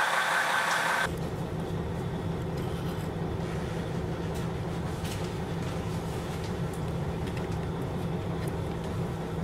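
Diesel railcar engine running, heard from inside the passenger cabin as a steady low drone. For about the first second a louder, hissier sound of the railcar heard from the platform comes before it.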